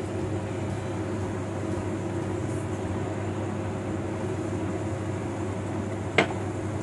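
A steady mechanical hum with a faint hiss, and a single sharp clink about six seconds in.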